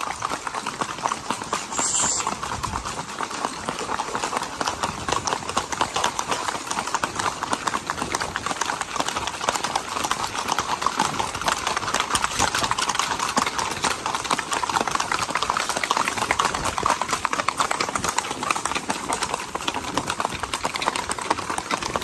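A ridden horse's hooves clip-clopping fast and evenly on a paved road, a rapid steady patter of hoofbeats heard from the saddle.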